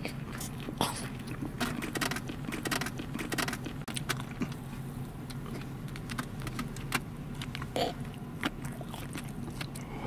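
Close-up chewing and wet mouth clicks as a burger is eaten, with small sharp handling ticks, over a steady low car-interior hum.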